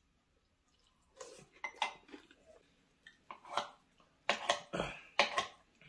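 Metal tongs clinking and scraping against a ceramic plate as food is picked up: a few scattered clinks, then a quicker run of sharp clinks about three seconds in.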